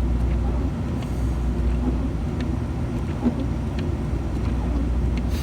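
Steady low rumble of a vehicle driving on the road, heard from inside the cab, with a few faint clicks.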